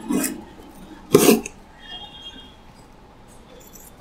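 Cardboard box being opened: two short ripping sounds as its sealing tape and flaps are pulled apart, one at the start and one about a second in.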